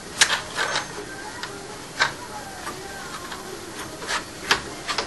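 Sharp metallic clicks and taps as a flange and nut are handled and seated on an angle grinder's threaded spindle over a cutting disc: a quick cluster of four in the first second, one about two seconds in, and three more near the end.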